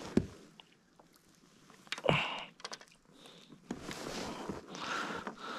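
Handling of the fish and gear in the kayak gives a few short knocks, the largest about two seconds in. Close breaths and sniffs through the nose follow for a couple of seconds near the end.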